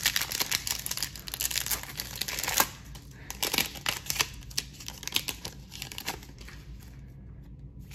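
Foil trading card pack (Panini Select football) being torn open and crinkled in the hands: a dense burst of crackling tearing for the first two or three seconds, then sparser, quieter crinkles as the wrapper is handled.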